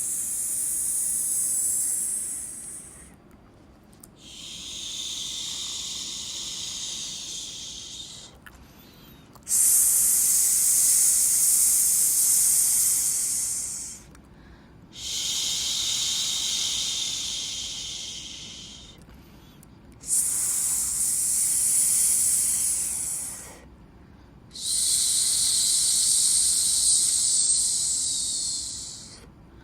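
Long shushing 'shhh' sounds for soothing a baby, about six in a row, each three to five seconds long, with short breaks between them. Some are higher and hissier, some lower.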